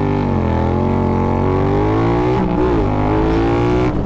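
Triumph Thruxton R's 1200 cc parallel-twin engine through open Meerkat racing mufflers, accelerating under load: the exhaust note climbs in pitch, drops back briefly about half a second in and again about two and a half seconds in as it shifts up, then climbs again.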